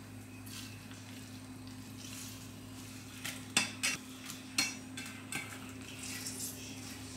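Soaked tofu-skin sticks being squeezed out by hand and dropped into a stainless steel bowl: soft wet squishing, with a few light taps and clicks on the metal about three to five and a half seconds in. A steady low hum runs underneath.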